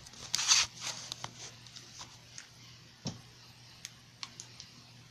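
Camera handling noise: the camera rubbing and knocking against a cloth shirt. A burst of rustling about half a second in is followed by scattered small clicks and one dull knock about three seconds in.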